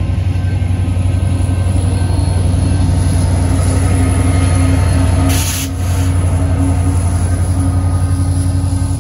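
Two EMD SD70ACe diesel-electric locomotives, running as rear distributed-power units, passing close by with their two-stroke V16 engines running in a steady drone. A brief hiss comes about five seconds in.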